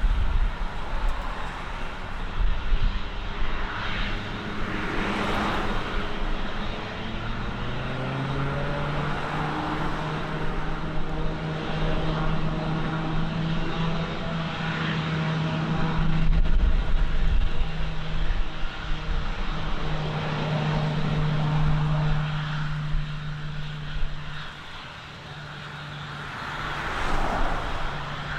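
Aircraft engines running as a plane passes, a steady hum of several tones whose pitch rises slightly about eight seconds in and then holds. Wind rumbles on the microphone at the start and again around sixteen seconds.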